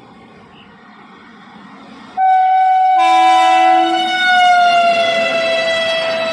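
An Indian Railways electric locomotive sounds its horn in one long, loud blast as an express train passes at speed. The horn cuts in about two seconds in, over the low rumble of the approaching train, and its pitch drops as the locomotive goes by, with the rush of the passing coaches beneath it.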